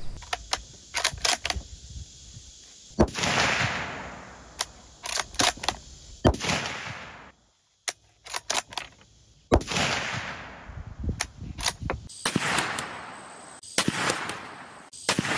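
A series of rifle shots from a .350 Legend Ruger American Ranch bolt-action rifle firing Barnes VOR-TX 170-grain TSX loads, each a sharp crack trailing off in an echo about a second long. Shorter sharp clicks fall between the shots.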